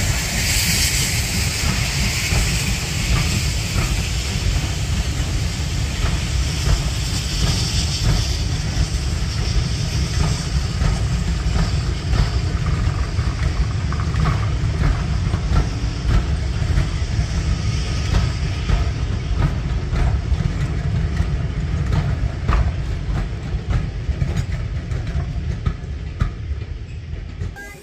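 Heritage railway passenger coaches rolling past at low speed. A steady rumble with irregular clicks of the wheels over the rail joints, fading near the end as the last coach goes by.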